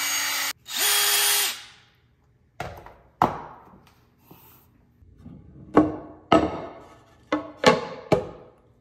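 Cordless drill running in two short bursts, boring through the sole of a high-heeled shoe. A string of sharp knocks with short ringing tails follows as hard objects are set down on a countertop.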